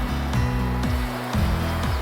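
Background music with a low bass line whose notes step and slide in pitch.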